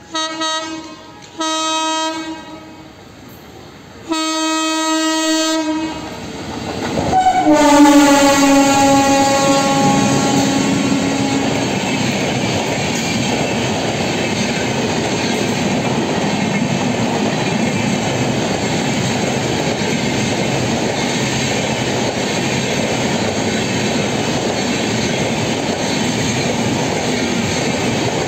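WAP-7 electric locomotive sounding its horn: two short blasts, then a longer one, then a last blast that drops in pitch as the locomotive passes at speed. After that comes the steady rumble and wheel clatter of the express's passenger coaches running past.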